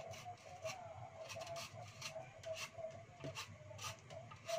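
Faint scraping of a vegetable peeler stripping the skin off a lotus root in short irregular strokes, about two a second. A faint wavering tone runs underneath.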